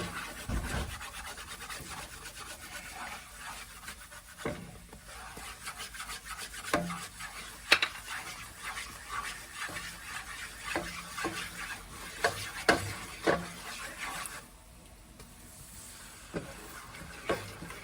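A spoon stirring and scraping a butter-and-flour roux around a pot, with scattered sharp knocks of the spoon against the pan. The stirring eases off briefly about two thirds of the way through.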